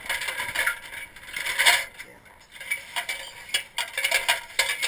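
Aluminium extension ladder clanking and rattling as it is handled, a run of irregular metallic knocks and scrapes, the loudest about a second and a half in.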